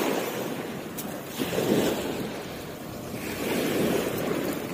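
Small waves washing up onto a pebble shore and draining back, rising and falling in about three surges.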